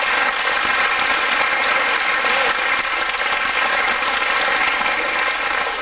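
A large group of children in a crowd clapping together in steady applause.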